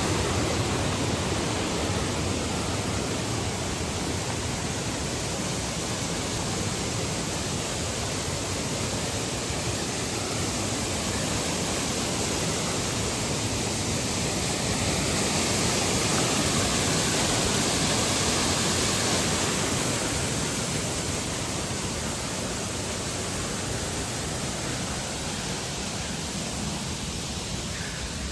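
A waterfall making a steady, loud rush of falling water that swells a little about halfway through.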